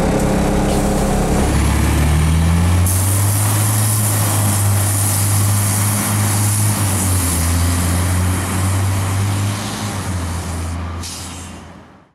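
Diesel engine of a New Flyer D40i city bus pulling away, a deep steady drone that rises in pitch about two seconds in, over a steady hiss. The sound fades out near the end.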